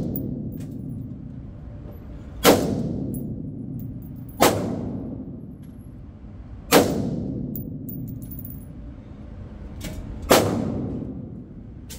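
Single shots from an AR-15-style rifle, four in all, a few seconds apart. Each is a sharp crack followed by a long echo dying away in the enclosed indoor range.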